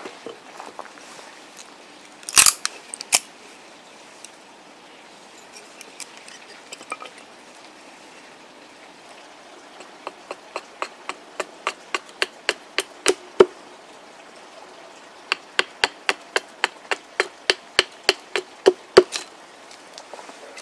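Small hatchet chopping and shaping dried ash wood on a chopping stump: a few heavier blows near the start, then two long runs of quick, light chops, about three a second, each a sharp knock.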